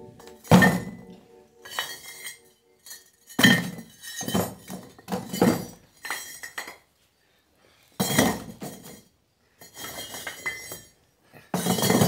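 Perforated red clay bricks being set one by one into a plastic builder's bucket, each knocking onto the bricks already inside with a sharp clink or thunk. About a dozen knocks come in small clusters with short pauses between them.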